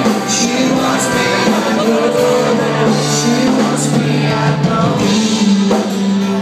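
Live country-rock band playing: a man singing over strummed acoustic guitar, electric guitar and bass.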